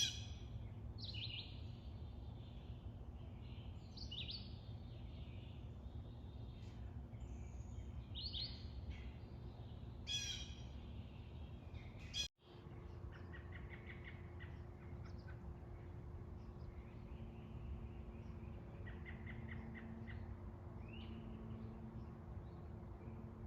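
Wild birds calling in a wooded yard: a few separate calls every couple of seconds, then, after a brief dropout, short runs of rapid chirps with a low steady hum behind them.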